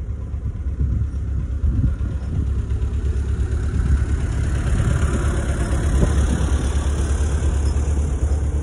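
Tractor engine running nearby, a steady low rumble that grows louder about halfway through.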